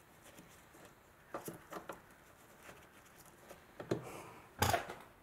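Light, irregular clicks and knocks of a hand tool working the small plastic nuts and bolts that hold a car's front wheel-arch liner, with a sharper, louder knock near the end.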